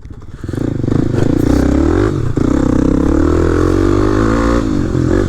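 Single-cylinder dual-sport dirt bike engine ridden hard around a dirt track. The engine note drops off sharply at the start, then builds back up over about the first second. After that it runs loud, its pitch rising and falling as the throttle is worked.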